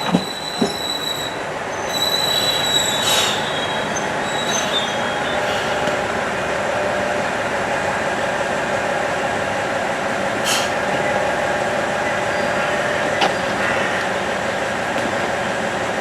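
Diesel railcar running on the rails. Its wheels squeal high-pitched in the first three seconds, then engine and wheel noise carry on steadily, with two sharp clicks right at the start.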